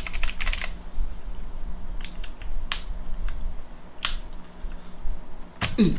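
Mechanical keyboard clicking: a quick run of key presses at the start, then a few separate plastic clicks as keycaps are handled and pressed onto the switches.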